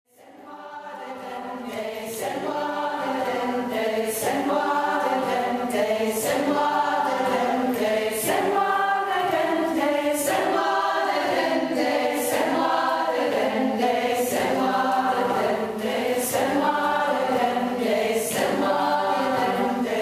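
A choir singing a cappella, fading in over the first two seconds, with a crisp hiss on the beat about every two seconds.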